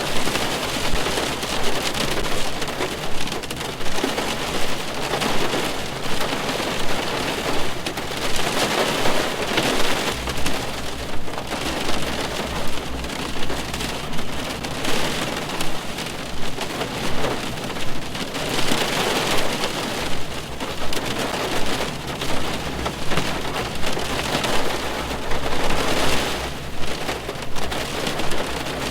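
Rain drumming on a car's roof and glass, heard from inside the car: a dense patter of drops that swells and eases every few seconds.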